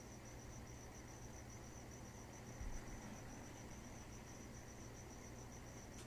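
Faint high-pitched chirping in rapid, even pulses, like an insect trill, steady throughout over a low hum. A soft low thump comes a little before the middle.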